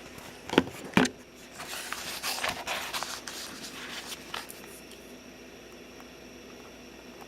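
Two sharp clicks about half a second apart, then a few seconds of scraping and handling noise, as the battery is fitted into a small RC airplane.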